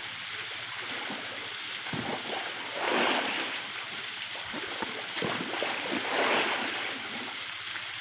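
Water splashing and sloshing as swimmers paddle through a pool, with louder splashes about three seconds in and again around five to six seconds.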